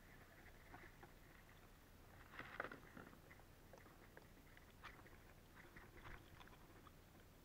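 Near silence with faint scattered clicks and rustles of fishing gear handled in a plastic kayak, and one louder scrape about two and a half seconds in.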